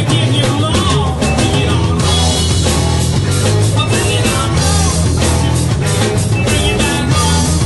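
A rock band playing loudly, with electric guitar and drums.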